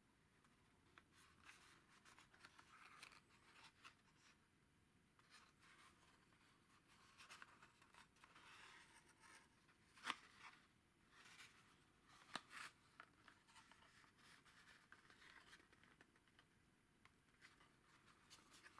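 Faint rustling and scraping of fingers turning a small cardboard carton, with two sharper clicks about ten and twelve seconds in.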